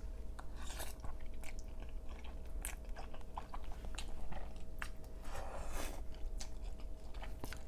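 Close-miked chewing of a mouthful of creamy crawfish pasta, with scattered small wet mouth clicks and smacks.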